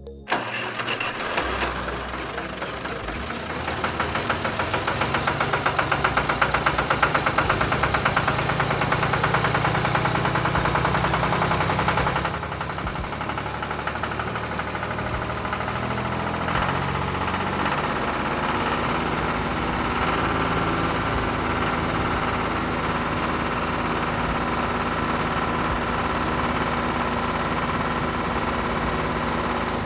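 Tractor engine running steadily with a fast knocking beat. Its note and level shift about twelve seconds in.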